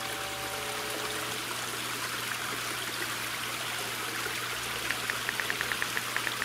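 Small rock waterfall splashing steadily into a garden pond. A strummed guitar chord rings and fades out in the first second and a half, and from about five seconds in come rapid light ticks, like phone keyboard taps.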